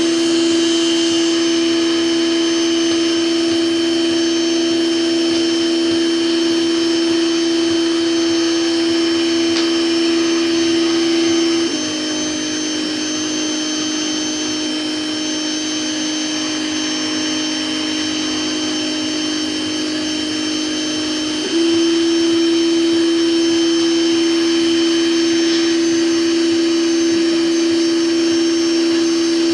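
Proxxon MF-70 CNC mini mill running steadily while cutting 3 mm plexiglass, its motor giving a steady whine. About twelve seconds in, the tone drops a little in pitch and loudness, then steps back up about ten seconds later.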